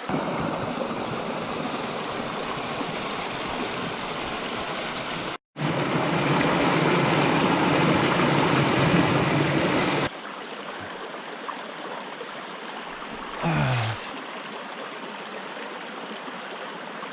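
Rushing water of a small mountain stream, a steady even wash that gets abruptly louder, then quieter, at two edits (about 5 and 10 seconds in). A short falling pitched sound is heard about 13 seconds in.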